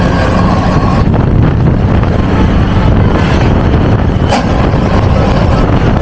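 Steady road noise from a moving vehicle at speed, with wind buffeting the microphone.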